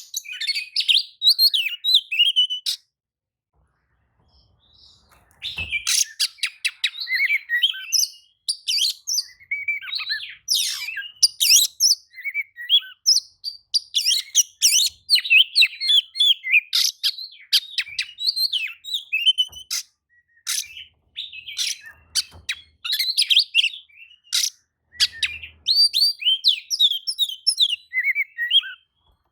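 Oriental magpie-robin singing a long, fast, varied run of whistles and chirps, breaking off for a couple of seconds about three seconds in. It is a fired-up song of the kind played to provoke other magpie-robins into answering.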